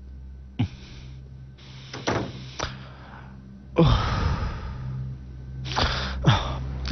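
A door being handled: a few short thuds and clicks, a longer rattling noise about four seconds in, and more thumps near the end, over a low steady hum.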